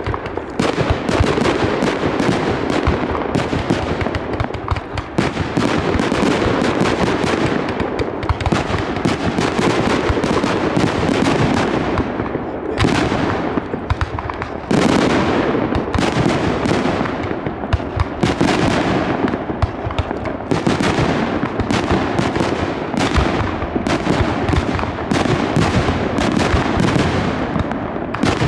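Fireworks display: aerial shells bursting in a rapid, unbroken string of bangs.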